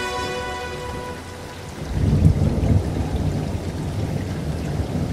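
Rain falling, with a low rolling rumble of thunder that swells about two seconds in. A held synth chord dies away during the first second.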